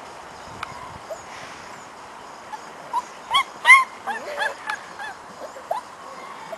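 Four-week-old puppies whining and yelping in a string of short, high squeals that start about three seconds in, the loudest just before the four-second mark.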